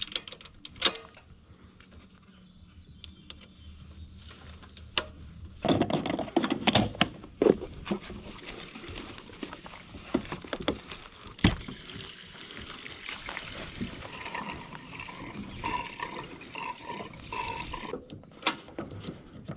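Gasoline pouring from a gas can into a Craftsman YT4000 riding mower's fuel tank, starting about six seconds in, with scattered knocks and clicks from handling the can and the filler.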